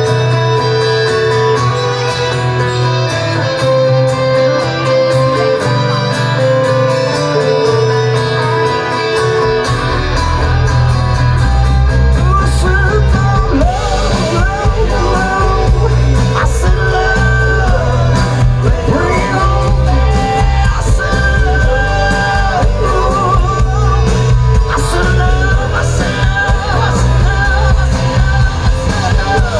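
Rock band playing an instrumental stretch of a song, guitar to the fore with a wavering melody line above it. The bass and drums come in heavily about ten seconds in.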